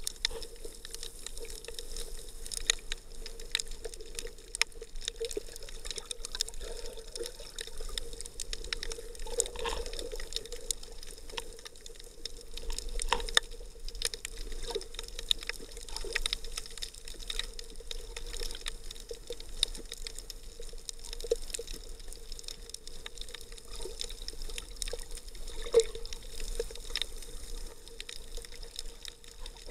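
Muffled underwater water sound picked up through an action camera's sealed waterproof housing: moving water with many irregular sharp clicks and knocks over a steady hum.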